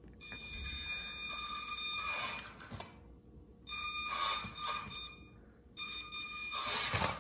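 Toy 4x4 RC truck's electric drive motor and gearbox whining under throttle in three pulls as it crawls up onto a detached rubber track unit, a steady high-pitched whine with some gear grit, then a knock near the end.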